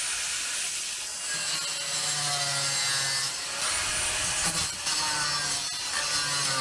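Corded angle grinder grinding away the steel C-channel crossmember under a box truck's floor, a continuous harsh whine that dips and recovers in pitch as the disc bites into the metal.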